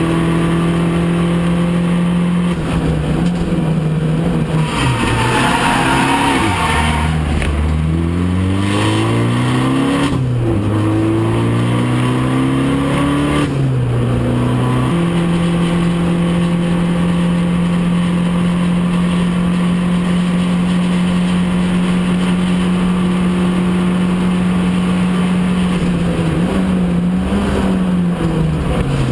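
Abarth 500 Trofeo race car's turbocharged four-cylinder engine heard from inside the cockpit at racing speed. In the first half the pitch falls and rises several times through downshifts and pulls between gear changes. It then holds one steady high note for about ten seconds, and shifts down again near the end.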